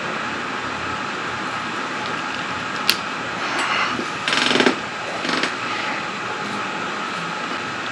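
A sharp click, then short ratcheting rasps, the loudest about four and a half seconds in, from hand work on the motorcycle's wiring, over steady background noise.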